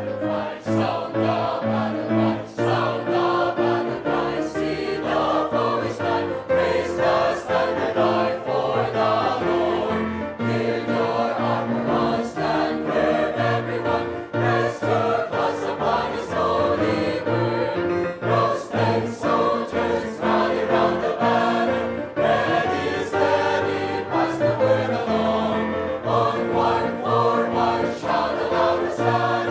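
A choir singing a hymn with instrumental accompaniment and a steady beat.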